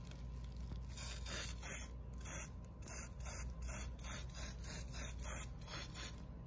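Trigger-grip aerosol can of Rust-Oleum Universal metallic spray paint hissing in a quick series of short bursts, about two a second, starting about a second in, as a metallic coat goes onto primed armor plates.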